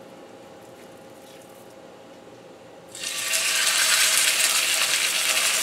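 Chicken breast laid into smoking-hot oil in a cast-iron skillet: after a faint steady hum, a loud sizzle starts suddenly about three seconds in and keeps going as the meat begins to fry.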